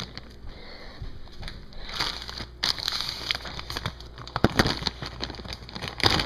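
Rummaging by hand: irregular crinkling and rustling with scattered light knocks and clicks.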